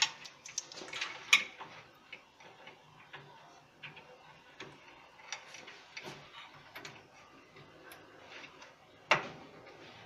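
Small irregular clicks and taps of plastic wire connectors being handled and pushed onto the terminals of a washing machine's timer, with a sharper click about a second in and another near the end.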